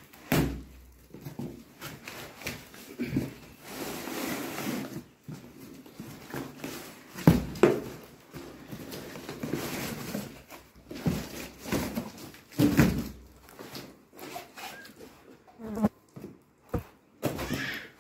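Cardboard packaging handled by hand: flaps pulled open with rustling and scraping, and irregular knocks and thuds as the boxed car stereo is lifted out and put down, the loudest knocks about seven and thirteen seconds in.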